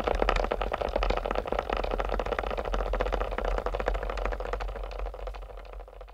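Flamenco footwork (zapateado): a fast, dense run of shoe strikes on the stage floor, fading out near the end.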